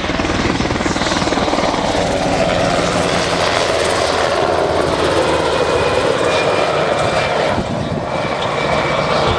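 Black Hawk-type military helicopter flying low past, its rotor and turbine noise loud and steady, easing a little near the end. A thin high whine comes in about halfway through.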